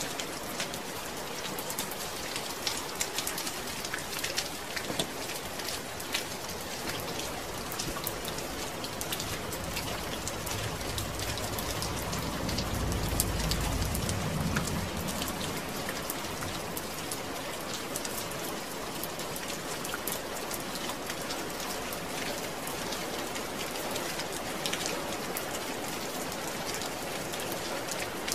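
Steady rain falling, a dense patter of drops hitting a surface. Around the middle a low rumble swells and fades again.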